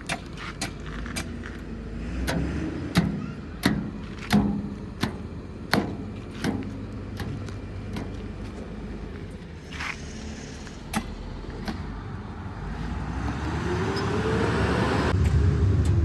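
Backhoe loader's diesel engine running, with a series of sharp knocks about every half second to second in the first half, as from the working bucket and arm. Near the end the engine revs up and back down, growing louder.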